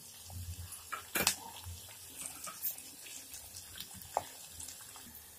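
Chopped onions and green chillies frying in oil in a pot over high flame, a soft steady sizzle, with a few clicks of a steel spoon against the pot, the loudest about a second in.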